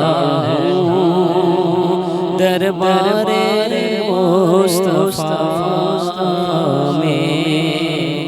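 A solo voice singing a naat in long, wavering melismatic phrases without clear words, over a steady low sustained tone, slowly fading near the end.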